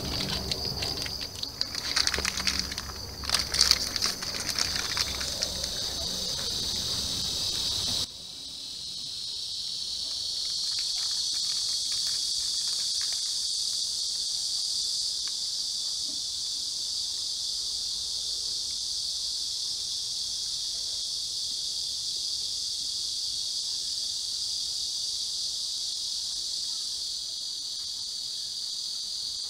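A steady, high-pitched chorus of insects. Over the first eight seconds or so, plastic crinkling from a snack wrapper being opened rides on top of it, then stops abruptly.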